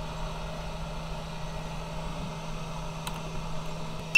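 The hot air gun of a YAOGONG 8878D 2-in-1 rework station blowing, with a steady fan hum and air hiss. At the very end a single short, high beep sounds from the station's button.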